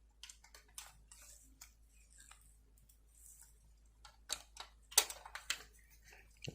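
Light, irregular clicks and ticks of a small screwdriver and screws being fitted into a diecast model car's chassis, with a cluster of sharper clicks about five seconds in.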